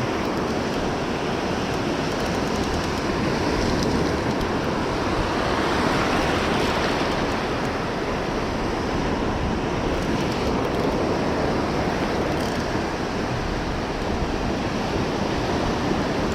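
Gulf of Mexico surf washing onto the beach, a steady rushing noise with wind on the microphone, swelling slightly about six seconds in.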